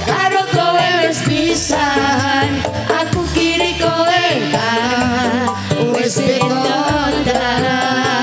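A Javanese song performed live: two women and two men singing together into microphones over a band with gamelan, the voices wavering with vibrato.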